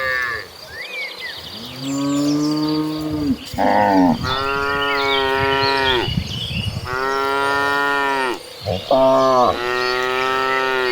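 Cattle mooing: about six drawn-out moos in turn from different cows, some low and some higher-pitched, the longest lasting about two seconds.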